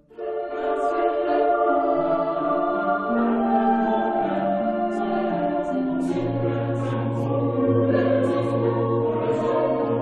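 Background music of a choir singing slow sustained chords that begin just after the start, with a low bass note coming in about six seconds in.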